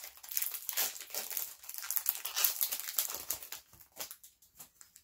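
Foil wrapper of a Pokémon trading-card booster pack crinkling as it is opened and the cards pulled out. The crinkling is dense for about three and a half seconds, then thins to a few light rustles near the end.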